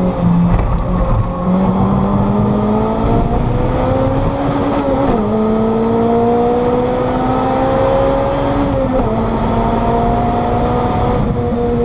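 Lotus Elise SC's supercharged 1.8-litre four-cylinder engine, heard from inside the cabin under hard acceleration. The revs climb, fall with an upshift about five seconds in, climb again, and fall with a second upshift about nine seconds in.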